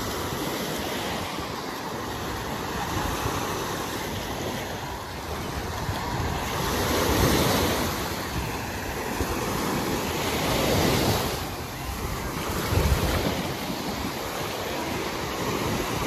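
Small waves breaking and washing up a sandy shore, swelling louder about seven and eleven seconds in. Wind noise on the microphone is mixed in, with a few low gusts near the end.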